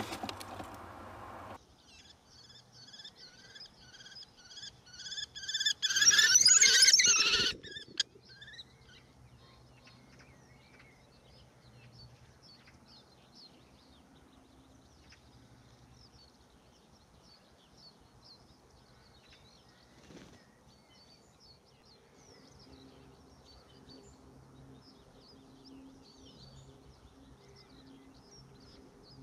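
Eurasian kestrel calling a rapid kee-kee-kee, a run of shrill repeated notes about five a second for five or six seconds, loudest near its end. Afterwards, faint twittering of small songbirds over a low steady hum.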